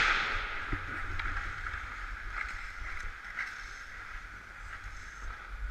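Ice hockey skate blades scraping and gliding over rink ice, heard from a camera worn by the skater, with a low rumble of wind on the microphone. A loud scrape right at the start fades over the first second, and a few light clicks follow.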